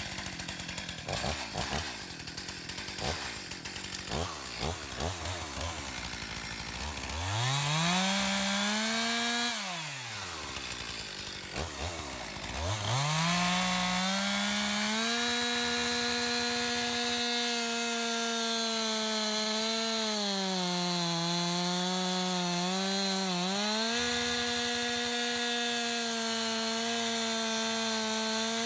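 Gasoline two-stroke chainsaw, low and uneven at first. It is revved up about seven seconds in, drops back, then is brought to full throttle again. It then runs at a steady high pitch while cutting into a tree trunk for a felling back cut, its pitch sagging for a few seconds near the end as the chain loads up in the wood.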